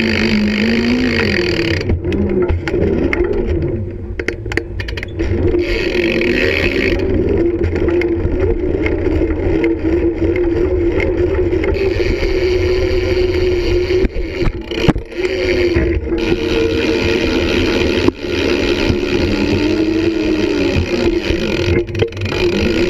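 Wheels rolling on skatepark concrete, a steady rumble whose pitch rises and falls with speed, with a few sharp knocks in the second half.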